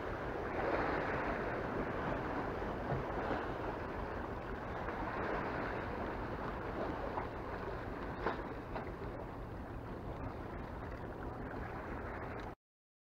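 Sea waves washing against the rocks of a breakwater: a steady rushing wash with a few louder splashes, cutting off suddenly near the end.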